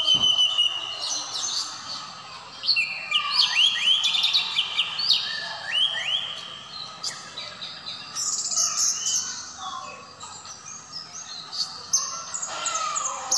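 Caged orange-headed thrush (anis merah) singing a long, varied song of quick whistled phrases, many sliding upward, mixed with fast high twittering runs.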